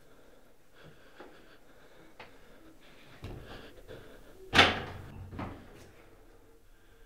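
Faint scattered knocks, then a low rumble that swells about three seconds in. A single loud bang comes a little past halfway and dies away, followed by a smaller knock just under a second later.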